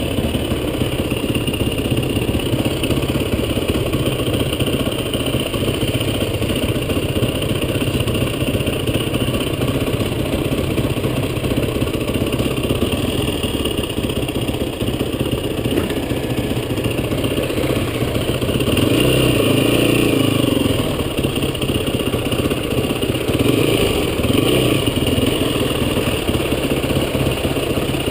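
Off-road vehicle engine running steadily under way, its revs rising briefly about two-thirds of the way through and again near the end.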